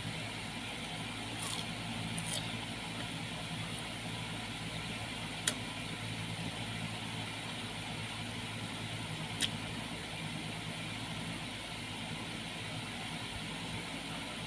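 A steady low mechanical hum, like a motor running, throughout, with a few single sharp clicks scattered through it while a person chews fruit.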